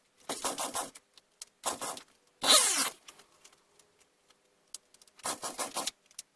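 Recoil starter cord of a Partner 510 chainsaw being yanked about four times, each pull a short rasping whirr, and the engine does not catch; the owner puts the no-start down to the saw not drawing petrol.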